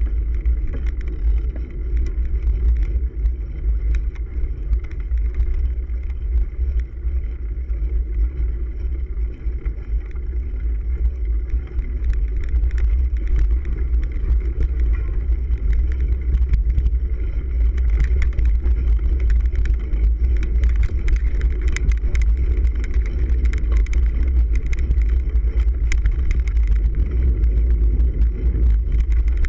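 Cyclocross bike riding over rough grass and dirt, heard through a camera mounted on the handlebars: a loud, steady low rumble of wind and vibration, with clicks and rattles from the bumpy ground that grow more frequent in the second half.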